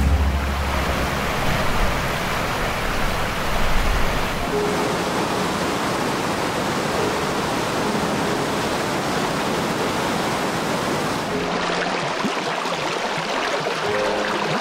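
Steady rush of fast-flowing river water. About two-thirds of the way through it changes to a shallow stream running over rocks around a water bottle held in the current.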